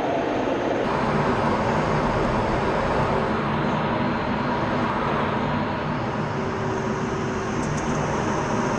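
Steady, loud rush of jet engine and airflow noise inside an F-16 fighter jet's cockpit in flight, with a faint low hum underneath.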